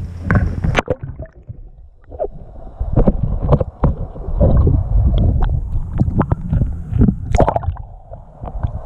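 Water sloshing and gurgling around a GoPro in its waterproof housing as it goes under the surface beside a kayak, with irregular knocks and splashes. The sound turns muffled about a second in.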